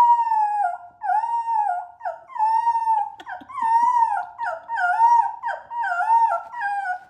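A dog whining in a rapid run of short, high, wavering cries, each rising and falling in pitch, about one to two a second.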